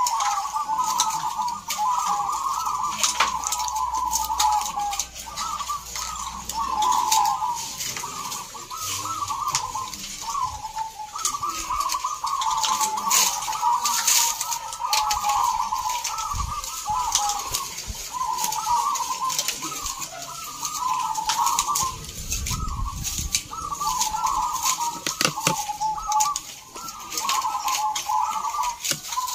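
Many caged zebra doves (perkutut) cooing at once, their rolling, repeated phrases overlapping without a break, with many short sharp ticks above them.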